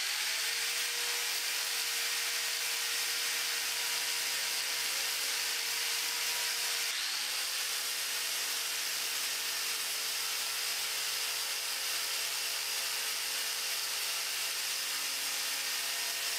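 Angle grinder with a flap disc sanding rust off a car's steel body panel: a steady motor whine over the hiss of the abrasive on metal, with a brief break about seven seconds in.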